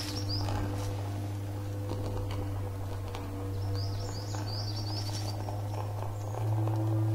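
A small songbird twittering in quick chirping phrases, once at the start and again about four seconds in, over a steady low hum.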